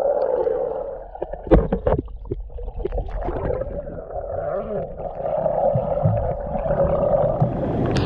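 River water heard underwater: a muffled, steady rush with gurgling bubbles, and a few sharp knocks about a second and a half in.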